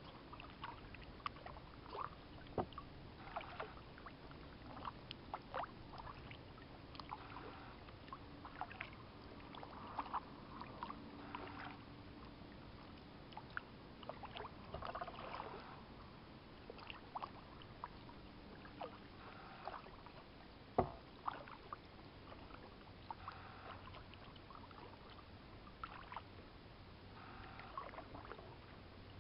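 Kayak paddling: a double-bladed paddle dipping into calm water with irregular splashes and drips, and small clicks and knocks from the paddle and hull, one sharper knock about two-thirds of the way through.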